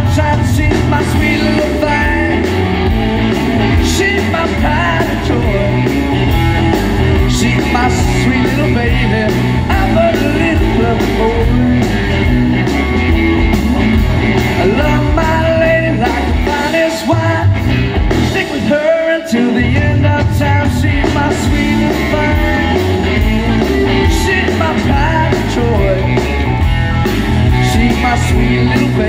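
A live rock band with electric guitars and drums playing loudly, heard from within the crowd. The bass and drums drop out for a moment about two-thirds of the way in, then come back.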